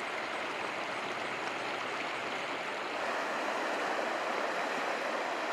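A river flowing: a steady rush of water, a little louder from about three seconds in.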